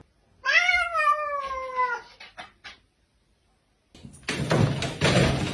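A cat gives one long drawn-out meow that falls slightly in pitch, followed by a few short clicks. About four seconds in a loud rough noise starts and runs on.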